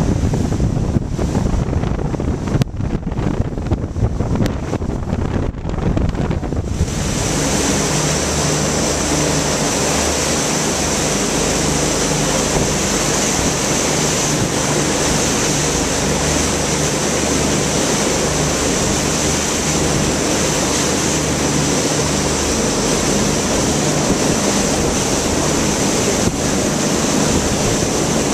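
Wind buffeting the microphone and water rushing past the hull of a motorboat under way, over the low drone of its engine. About seven seconds in, the gusty sound gives way to a steady, louder rush with spray at the bow.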